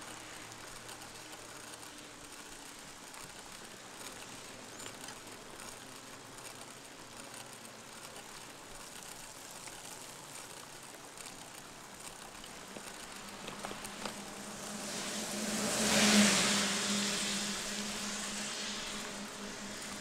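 Bicycle tyres hissing on a wet road under rain and wind noise. About two-thirds of the way through, a motor vehicle swells in, passes with a steady engine hum and the spray of wet tyres, and fades away over a few seconds.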